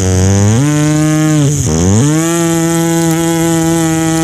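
Beatboxer's vocal imitation of a woodcutter's saw: a low, droning buzz from the throat that steps up in pitch about half a second in, dips briefly, then holds at the higher pitch like a saw engine revving.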